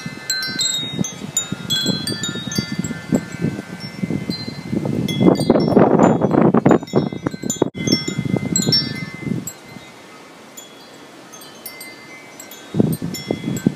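Wind chimes ringing in strong dust-storm wind, many overlapping metal notes struck at random, over wind buffeting the microphone. The gusts are strongest about five to eight seconds in, then ease off for a few seconds before picking up again near the end.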